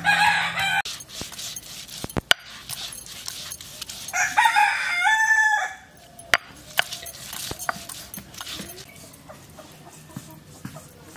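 A rooster crows twice, a short call at the start and a longer crow about four seconds in that ends on a held note. Between them come scattered sharp knocks of a stone roller pounding and rolling garlic and ginger on a flat grinding stone.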